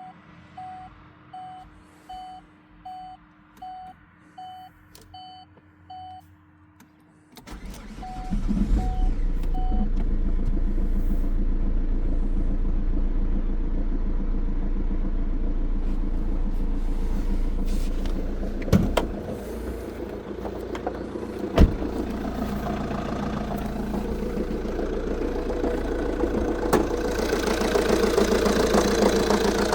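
A dashboard chime beeps evenly for about seven seconds, then the Opel Insignia's 2.0 diesel engine starts and idles, with two sharp knocks later on. The engine has a knock whose cause the owner does not know.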